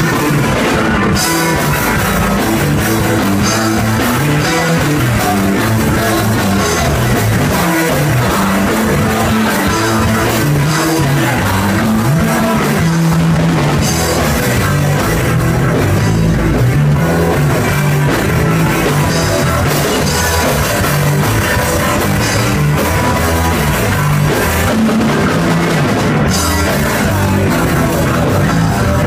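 Live rock band playing loud, with drums, guitar and a bass line moving between notes.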